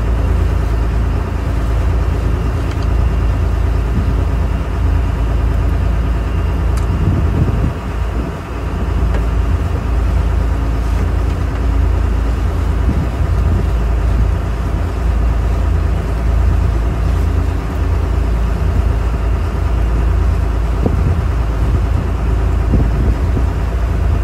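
Fishing boat's engine running steadily underway, a loud, even drone.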